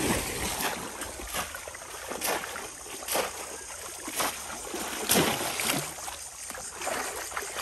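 Water splashing as bamboo polo fish traps are plunged repeatedly into shallow river water, a splash about once a second over steady sloshing from wading legs and hands.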